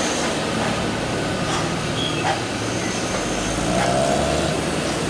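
Traffic climbing a steep hairpin bend: diesel tank-truck engines pulling uphill and motorcycles passing, over steady road noise.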